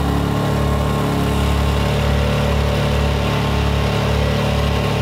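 Powerhorse 2000-watt gasoline portable inverter generator running steadily at raised engine speed, a button on its panel having been pressed to rev it up.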